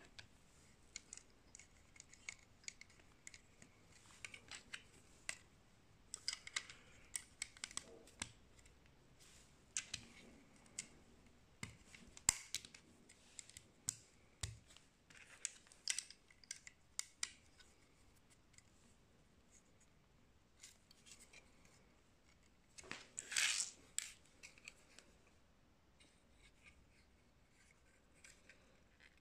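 Small plastic building bricks clicking and snapping as they are handled and pressed together by hand, in many short, irregular clicks. A brief louder rustle comes about three-quarters of the way through.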